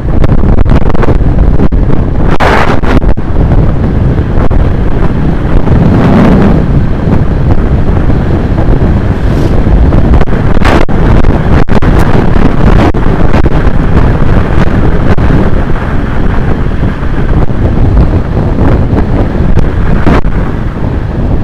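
Heavy wind rushing over the microphone of a camera on a road bike descending at speed, a steady loud buffeting with a couple of brief louder swells in the first few seconds.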